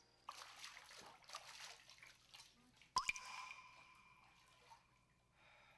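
Faint water splashing and dripping in a bath. About three seconds in comes a sharp strike, then a ringing chime-like tone that slowly fades.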